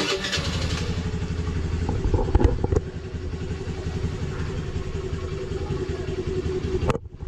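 Honda Dio 110 scooter's single-cylinder engine starting up and running steadily at idle. It gets louder for a moment about two seconds in, and the sound cuts off briefly near the end.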